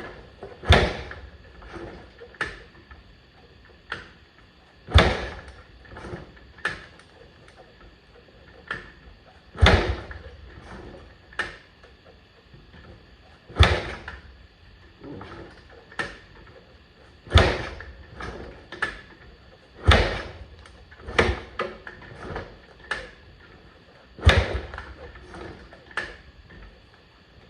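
Yamaha AG200's single-cylinder engine being kick-started: about seven hard kicks, one every four seconds or so, each a sharp thump, with smaller clicks and rattles between. The engine turns over but does not catch, on a weak spark.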